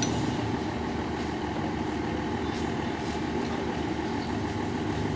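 Diesel generator engine of an ex-JR West 'Blue Train' sleeper coach running steadily at idle, a continuous low hum, supplying power for the coach's air conditioning and lights.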